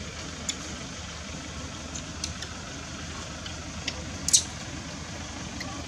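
Steady low background rumble with a few short, sharp clicks scattered through it; the loudest click comes about four seconds in.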